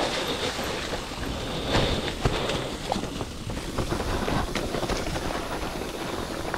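Mountain bike rolling over rocky singletrack covered in dry leaves: tyres crunching through the leaves and frame and parts rattling over rocks in quick irregular clicks and knocks, with wind noise on the microphone.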